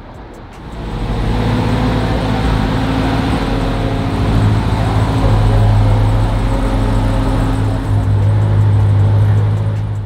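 Car engine running loudly at a steady speed, holding one low, even note. It comes in about a second in and cuts off at the end.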